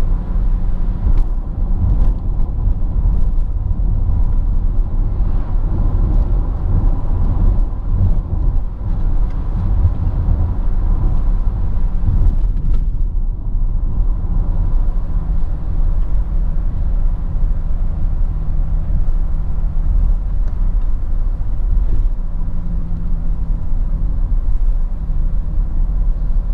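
Inside the cabin of a BMW 530d (E39) on the move: a steady low rumble of tyre and road noise with the hum of its 3.0-litre straight-six turbo-diesel, briefly easing about halfway through.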